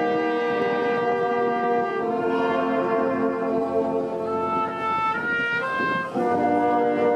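Orchestral background music with brass holding full chords, broken about two-thirds of the way through by a short run of stepping notes before the chords return.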